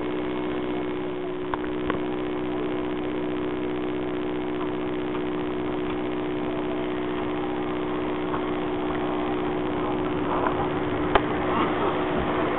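Bulleid Pacific steam locomotive standing close by, giving a steady hum over a hiss of steam, with a few light knocks near the end.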